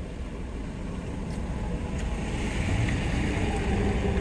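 Vehicle engine running with a steady low rumble, heard from inside a minivan's cabin, growing a little louder about halfway through.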